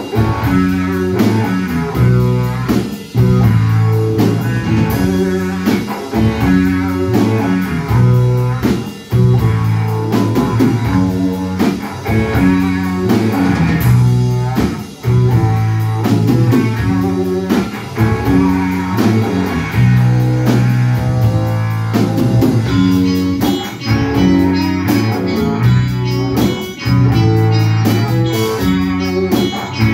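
Live instrumental rock band playing: two electric guitars, bass guitar and drum kit, with a steady drum beat under sustained bass notes.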